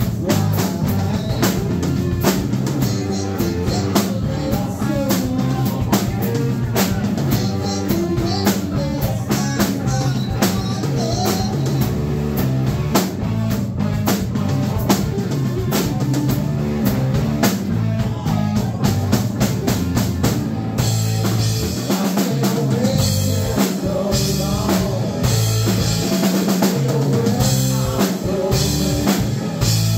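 Live rock trio playing: electric guitar, electric bass and a drum kit with a steady beat. About two-thirds of the way through, the cymbals come in louder and brighter.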